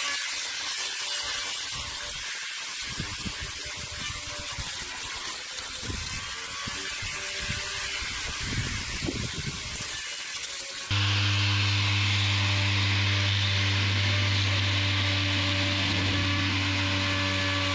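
Electric cutting head on a home-built remote-control mower spinning and cutting through weeds, a steady whir with irregular rustling and thuds. After a cut about eleven seconds in, a louder, steady low-pitched motor hum.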